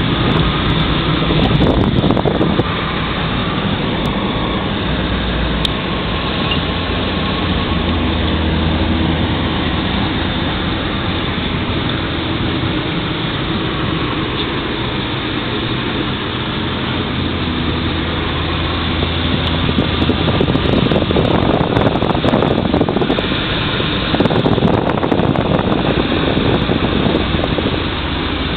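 Inside the cabin of a 2002 Chrysler PT Cruiser driving on a highway: the 2.4-litre four-cylinder engine runs under a steady rush of tyre and wind noise.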